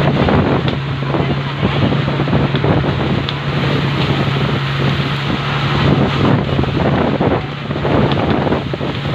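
Motor bangka's engine running with a steady low drone while the boat is under way, under heavy wind noise on the microphone and the rush of sea water.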